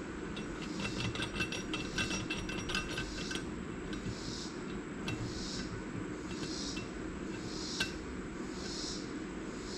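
Small steel valve-train parts clinking and tapping as valve springs, retainers and keepers come off a Kawasaki Ultra 250X cylinder head under a valve spring compressor. A quick run of light metallic clinks comes in the first few seconds and a single sharp click near the end, with a soft hiss repeating at an even pace through the second half.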